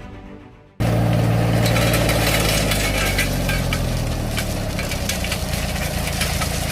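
Theme music fades out, then less than a second in it cuts to an engine running steadily at idle, loud, with light clinking over it, as from construction equipment at a drainage trench.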